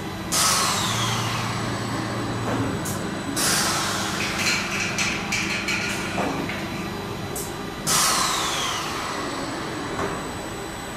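Industrial robot arm with a pneumatic gripper at work: three sudden hisses of compressed air venting, each fading away over a second or two (near the start, about three and a half seconds in, and about eight seconds in), over a steady low hum from the robot's motors.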